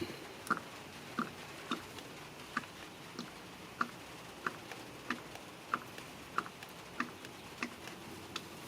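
Slow, regular drips, about three every two seconds: engine oil dripping during an oil fill.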